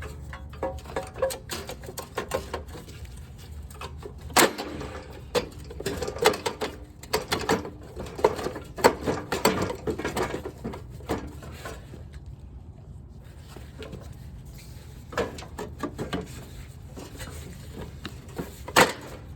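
Irregular clicking, knocking and rattling of a snowblower part being wiggled by hand to work it around an obstruction, busiest in the middle, with a sharp knock near the end.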